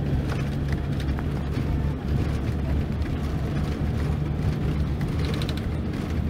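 Mercedes-Benz OC-500RF-1842 coach's rear-mounted OM 457 straight-six diesel running steadily with a low drone, with a brief run of faint ticks about five seconds in.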